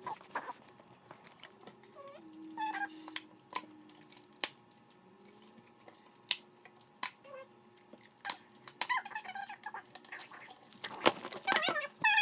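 Fingers picking at and peeling the plastic seal off a metal trading-card tin: scattered light clicks and taps, with a few short squeaks and a louder flurry of scraping and squeaks near the end.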